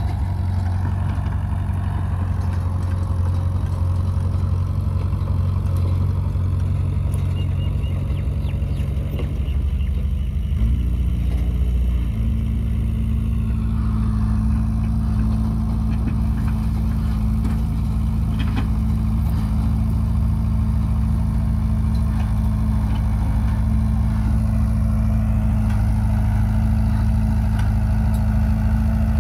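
Caterpillar bulldozer's diesel engine running steadily. About ten seconds in, its note shifts and settles at a slightly higher engine speed.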